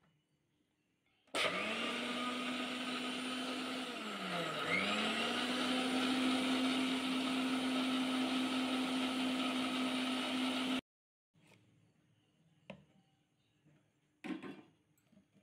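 Electric mixer grinder (mixie) blending a milkshake of milk, ice cream and sugar: the motor starts about a second in and runs with a steady whine, dips in speed and picks back up about three seconds later, then stops abruptly. A few faint knocks follow.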